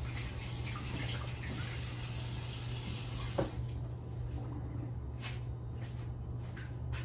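Kitchen tap running briefly as a knife is wetted under it before slicing sushi, followed by a sharp click and a few light knocks, over a steady low hum.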